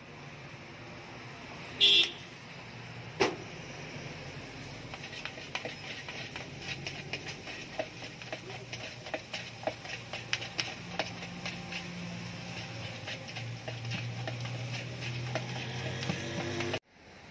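A spoon clicking and scraping against a plastic bowl as sweet corn is stirred, in quick irregular clacks. A short car horn toot sounds about two seconds in and is the loudest thing.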